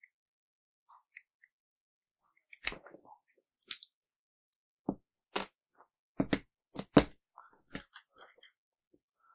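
Small metal clicks and taps of a rifle's M16-type bolt carrier group being stripped by hand: the firing pin retaining pin and firing pin drawn out and steel parts knocking against the carrier. About a dozen scattered sharp clicks, the loudest about seven seconds in.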